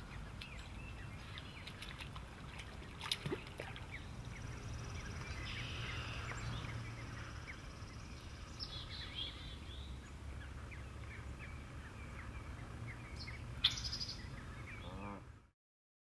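Birds chirping in many short, high calls over a steady low rumble of outdoor background noise, with a couple of sharper, louder sounds; the sound cuts off abruptly near the end.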